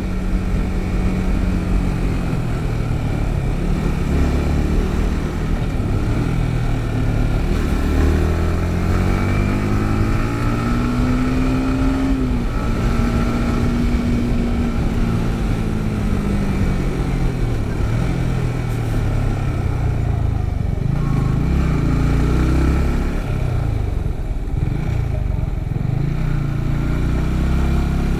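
Yamaha MT-15's 155 cc single-cylinder engine under way, its pitch climbing as it accelerates, holding steady for a few seconds, then falling away as it slows, and climbing again near the end, over a steady rush of wind and road noise.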